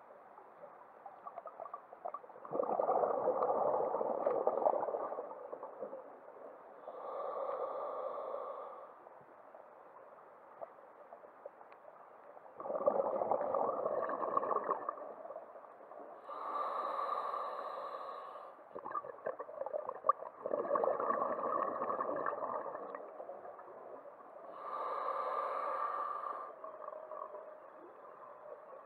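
A scuba diver breathing through a regulator underwater: about three slow breaths, each a long noisy rush of exhaled bubbles alternating with a shorter hissing inhalation.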